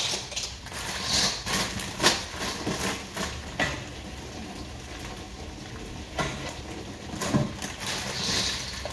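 Dry pasta shells being poured from a crinkly plastic bag into a pot of water: a few sharp clicks and knocks, the loudest about two seconds in, and bag rustling near the end.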